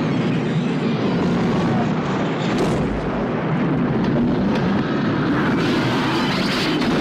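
Film sound effects of a derailing passenger train, its cars sliding and tumbling down a dirt embankment: a steady, loud rumble and grinding with metal screeching over it.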